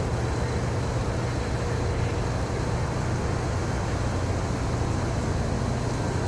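Steady low rumble and hiss of an approaching diesel freight locomotive, unchanging throughout.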